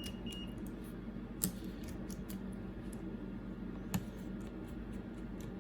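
Small repair tools clicking and ticking against the opened iPad's internal parts, with two sharper clicks about a second and a half and four seconds in, over a faint steady hum.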